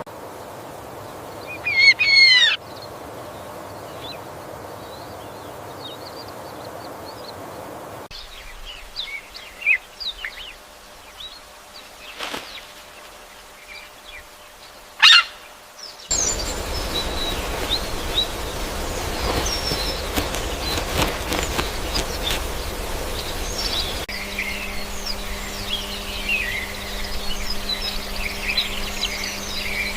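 Several bird-call recordings spliced one after another. Loud, quick falling chirps come about two seconds in, then scattered calls and a sharp single call near the middle. From just past halfway many birds chirp at once in a dense chorus, and a steady low hum joins near the end.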